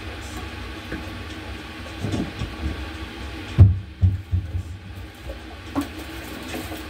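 Steady low hum of kitchen background noise, with a few dull knocks of things handled on the counter, the loudest about halfway through.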